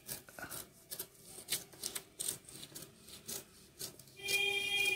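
Utility-knife blade slicing through folded paper along the crease, a run of short rasping strokes, a few a second. A brief steady hum near the end.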